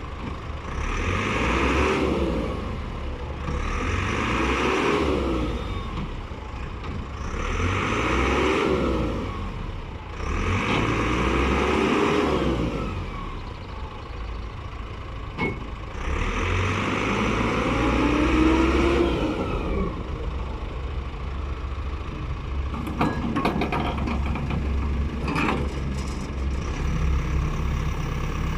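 Caterpillar 426C backhoe loader's diesel engine repeatedly revving up and dropping back, about five surges with a rising-and-falling whine as the hydraulics are worked. After that it runs steadier, with several sharp metallic knocks near the end.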